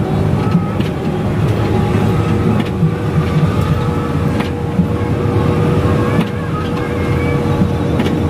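Interior noise of a coach bus on the move: the engine and tyres on a wet road make a steady, loud rumble, with a faint steady hum that joins about two and a half seconds in.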